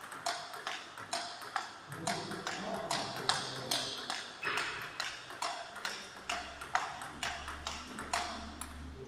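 Table tennis balls clicking off paddles and tables in rallies, a steady run of sharp hits about three a second, echoing in a large gym hall.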